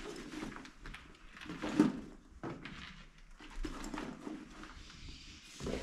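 Handling noises from packing a bag: irregular rustling and light knocks as items are picked up and put in, with one sharper knock just under two seconds in.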